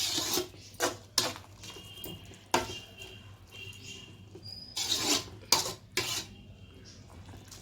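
Kitchen utensils knocking and clinking against a pot of cooked curry, several separate knocks spread out, a few ringing briefly.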